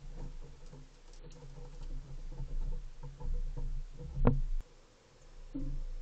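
Fox squirrel scrabbling and scuffing on the deck railing right at the trail camera, with irregular small knocks and one sharp, loud knock about four seconds in.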